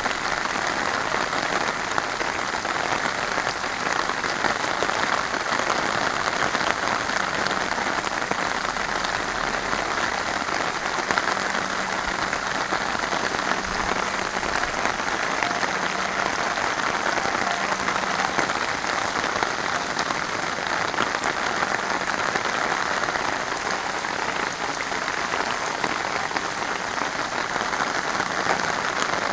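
Heavy rain pouring down at a steady, even level.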